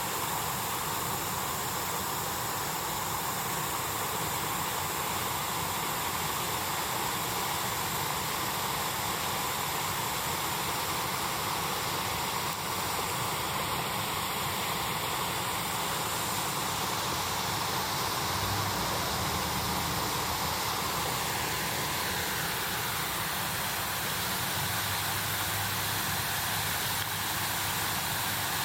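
Waterfall running steadily: a constant rush of falling water.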